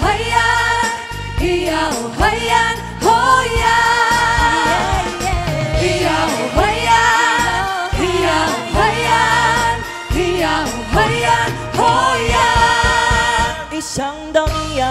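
A pop song sung live by a vocal group: sung melody with vibrato over a backing track with a steady bass line.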